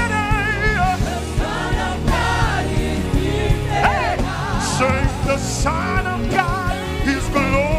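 Live gospel worship music: singing with wide vibrato and sliding notes over a band with drums.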